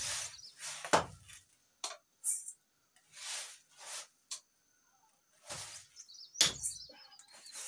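Large knife chopping raw beef on a wooden stump block: a few sharp, heavy chops, the loudest about a second in and again near the end. Between them come short rustles of rice being rubbed by hand on a woven bamboo tray.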